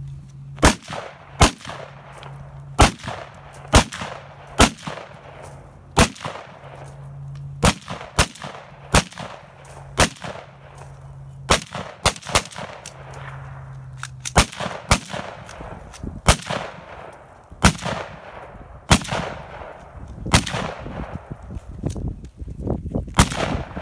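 Rifle fire on an open range: about two dozen single shots from two shooters, unevenly spaced roughly a second apart, each crack trailing a short echo.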